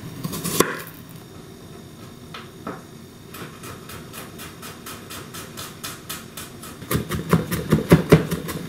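Chef's knife mincing garlic on a wooden cutting board: a few scattered cuts at first, then quick, steady taps of the blade on the board, about four or five a second, louder for the last couple of seconds.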